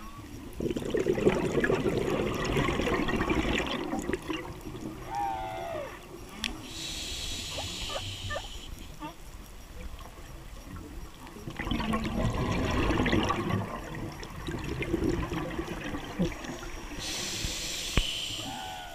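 Humpback whale song heard underwater: short pitched moans that bend up and down, about five seconds in and again near the end. Over it, the diver's scuba breathing: two long bubbling rushes of exhaled air, the loudest sound, and a hiss of the regulator on each inhale between them.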